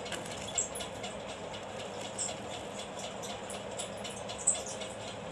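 Steady background hum, with a few faint clicks and taps as glue is squeezed from a plastic Fevicol bottle onto folded cardboard. The sharpest tick comes about four and a half seconds in.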